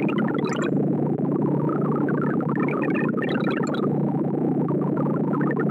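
ArrayV sorting visualizer's synthesized tones: a dense, rapid stream of short electronic beeps whose pitch follows the values being compared and written as the array is sorted. A steady mass of lower notes runs throughout, and twice, about three seconds apart, a cluster of notes climbs higher.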